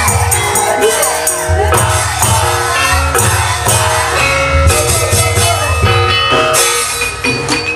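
Javanese gamelan ensemble playing: metallophones ring sustained notes over drum beats, with bright metallic clashes throughout.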